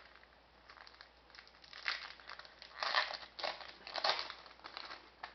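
Crinkling and rustling of hockey card packs and cards being handled, in several short irregular bursts, loudest about three seconds in.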